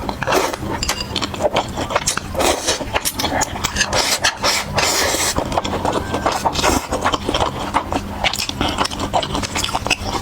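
Close-miked eating sounds: continuous chewing and mouth noises with many quick clicks and short noisy bursts, over a steady low hum.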